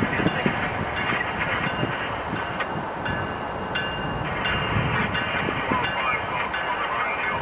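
CSX diesel-hauled freight train with tank cars rolling slowly past, the locomotive's engine running under the steady rumble and clatter of the wheels on the rails. High ringing tones come and go several times.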